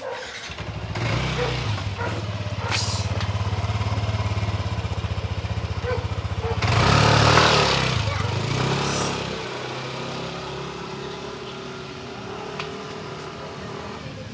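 Yamaha NMAX scooter's single-cylinder engine starting and idling, then revved hard about seven seconds in as it pulls away, running quieter from about nine seconds on.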